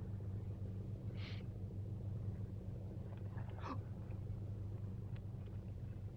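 Car engine running, a steady low rumble heard from inside the cabin, with two faint brief sounds, one about a second in and one near the middle.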